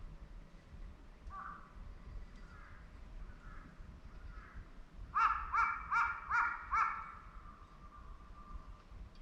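A crow cawing: a quick run of five harsh caws, about three a second, a little past halfway, with fainter calls before it.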